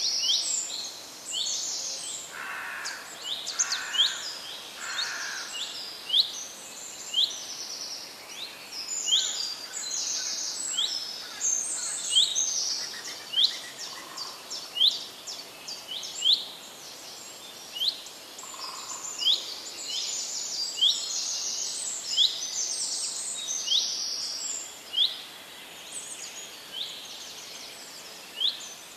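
Birds chirping: a short rising chirp repeated over and over, over busy higher twittering, with a few lower notes, three in a row a few seconds in.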